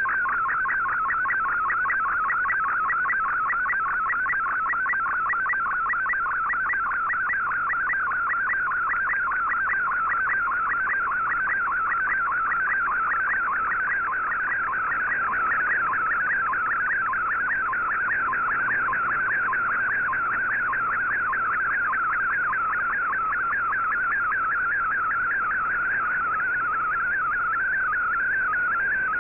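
Shortwave Radiogram's MFSK picture transmission received on an Icom IC-R8600: a continuous, rapidly warbling tone as a colour image is sent line by line.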